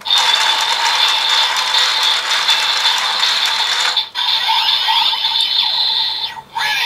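DX Build Driver toy belt with its red crank lever being wound by hand: a steady ratcheting, gear-like clatter over the toy's electronic cranking tone, charging the finishing move. It stops briefly about four seconds in, then resumes.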